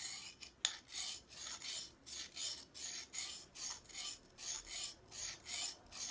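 A secateur blade's edge being sharpened on a lightly wetted, medium-grade white aluminium-oxide sharpening stone: a gritty rasp in quick back-and-forth strokes, about three a second. One sharp click comes about half a second in.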